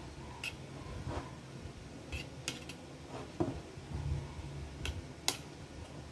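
A metal spoon spreads soft chocolate ganache inside a metal cake ring. It scrapes lightly and gives a handful of sharp clicks where it taps the ring or the bowl's edge.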